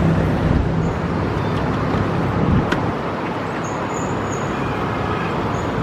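Steady street traffic: vehicle engines and tyres running, with a low engine hum in the first couple of seconds and a single sharp click about two and a half seconds in.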